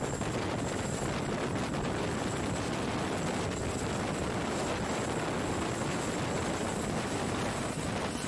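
Boeing CH-47 Chinook tandem-rotor helicopter at close range lifting off: its rotors and engines run loud and steady, with a thin high whine held throughout.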